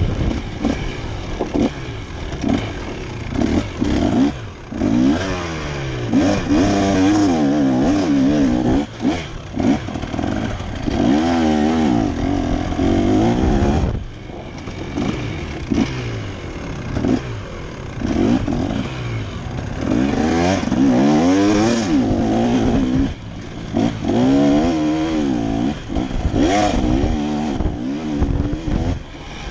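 KTM dirt bike engine revving up and down through the gears on a dirt trail, its pitch rising and falling over and over, with short drops where the throttle is shut off.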